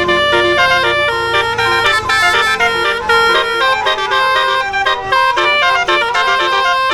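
Bus telolet horn, a set of tuned air horns, playing a fast melody of short notes that change pitch every fraction of a second.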